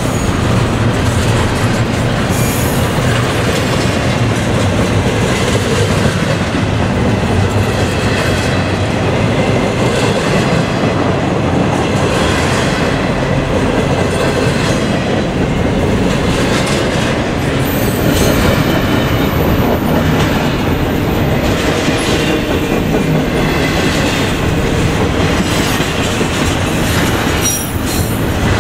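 Double-stack intermodal freight train rolling past close by: a steady rumble and clatter of the well cars' wheels on the rails.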